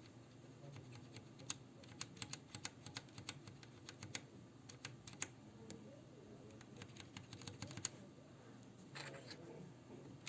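Typing on a ZET Blade Pro mechanical keyboard with linear Kailh Red optical switches: a quiet, irregular patter of key clicks that starts about a second and a half in, comes in two busy runs, and ends with a short cluster near the end.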